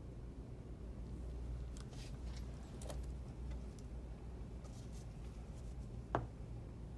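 Faint scattered clicks and ticks over a low steady hum, with one sharper click about six seconds in.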